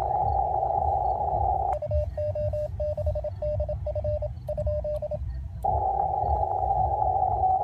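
Amateur radio transceiver on the 80-metre band in CW: band hiss through a narrow receive filter, then, about two seconds in, Morse code sent on a paddle key, heard as a single-pitch sidetone keyed in dots and dashes for about three seconds while the receiver is muted on transmit. The hiss returns near the end.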